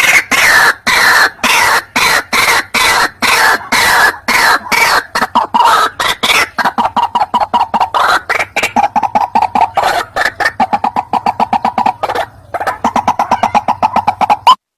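White-breasted waterhen calling: a loud, rapid run of harsh repeated notes that quickens to several a second, with a short break near the end.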